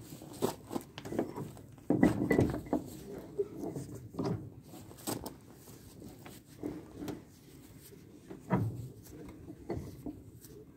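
Rusty Reed bench vise being cranked open and shut by its handle, its freshly oiled screw and sliding jaw clunking and rattling in irregular knocks, loudest about two seconds in. The vise is being worked in to loosen it up.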